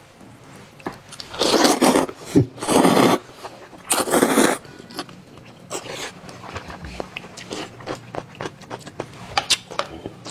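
Close-miked eating: three loud crunching bites in the first few seconds, then quieter chewing with many small clicks.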